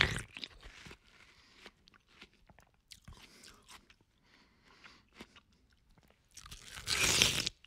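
A person eating watermelon: the end of a loud bite at the start, quieter chewing with scattered small clicks through the middle, then another loud crunching bite about six and a half seconds in.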